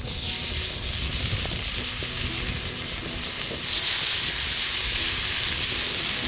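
Food sizzling steadily in a hot pan over a campfire, a dense hiss that starts at once as it hits the heat.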